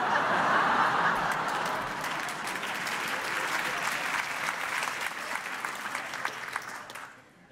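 Audience applauding, loudest at the start and dying away near the end.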